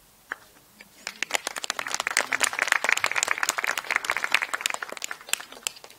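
Audience applauding with hand claps, starting about a second in and thinning out near the end.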